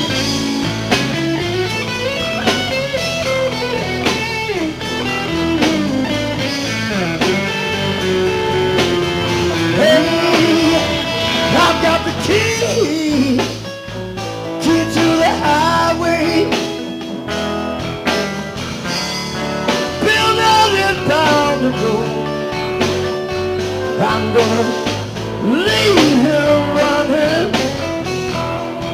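Live blues-rock band playing an instrumental break, a lead guitar playing bent, gliding notes over the rhythm section and drums.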